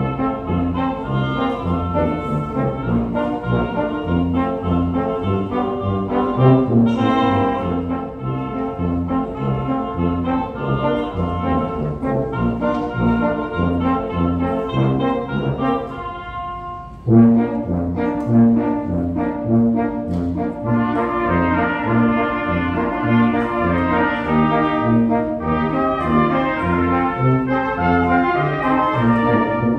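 Brass quintet of two trumpets, French horn, trombone and tuba playing a Christmas medley arrangement, with a regular pulsing bass line under the melody. Just past halfway the low parts drop out for about a second, then the full quintet comes back in.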